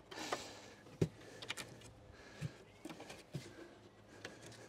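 Faint knocks and rubbing from wooden portable jump-ramp sections being handled, with one clear knock about a second in and a few softer ones after.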